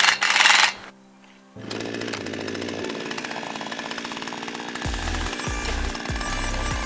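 A cordless drill drives a screw in a short burst. Then, from about one and a half seconds in, a HAIGE HG-F5200 52cc two-stroke chainsaw runs steadily in an Alaskan-style chainsaw mill, ripping a log lengthwise.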